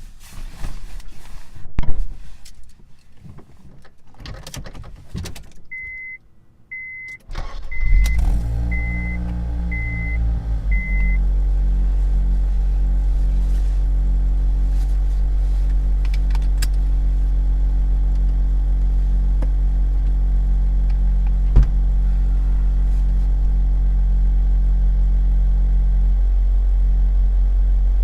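Keys and interior clicks, then a dashboard chime beeps six times at about one beep a second. Meanwhile the Honda Civic Type R EP3's 2.0-litre K20 four-cylinder is cranked and starts about eight seconds in, flares briefly, and settles to a steady idle.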